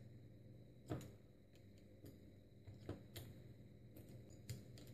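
Faint clicks from a screwdriver tip touching the leads of a xenon flash circuit's charged capacitor to short and discharge it: one sharper click about a second in, then a few smaller ones near the end. Otherwise near silence.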